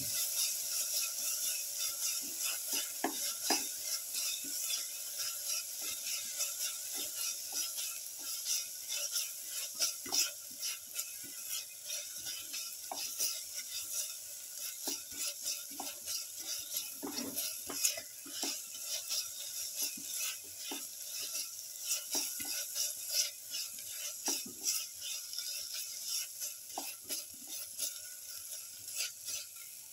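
Sliced onions and green cilantro paste sizzling in oil in a pan as a spatula stirs them, with frequent short scrapes and knocks of the spatula against the pan. It grows quieter toward the end.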